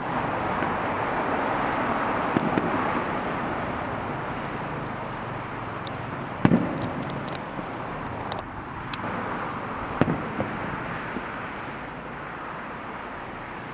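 Aerial fireworks bursting: a few sharp booms, the loudest about halfway through and another near ten seconds in, with thin crackles between them, over a steady rushing background noise.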